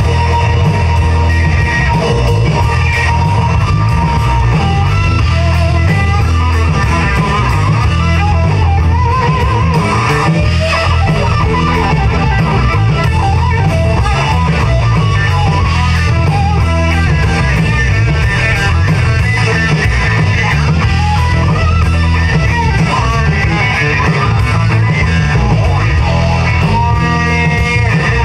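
Live rock band playing: a solid-body electric guitar takes a lead of bent, wavering notes over drums and a steady, heavy low end.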